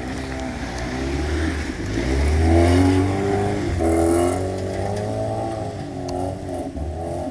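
Fiat Elba car engine revving hard under load on a muddy trail, its pitch rising and falling as the driver works the throttle; loudest about two to four seconds in.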